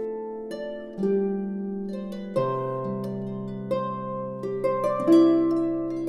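Music: a slow melody of plucked string notes, each ringing and fading, over held low notes, with a new note every half second to second.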